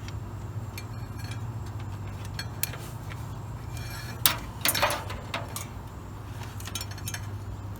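Light metallic clicks and clinks, loudest about four to five seconds in, as the horn's wiring connector is plugged in, over a steady low hum.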